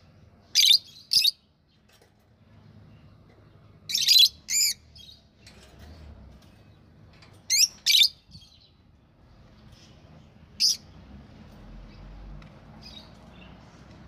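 Budgerigars chirping: short, sharp, high calls, mostly in quick pairs. There are three loud pairs and a single call near the end, with faint softer chatter between.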